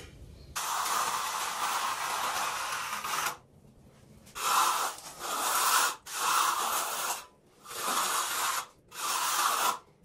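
Steel hand trowel scraping across the surface of freshly poured wet concrete: one long pass, then four sweeping strokes about a second apart.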